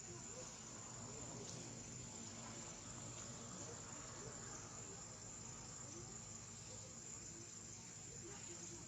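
Insects trilling: a faint, steady, high-pitched drone that holds without a break.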